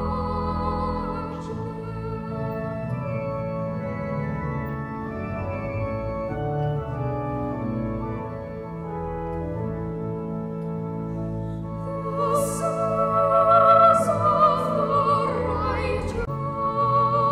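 Sacred church music: singing voices over held organ chords, the voices swelling louder about twelve seconds in.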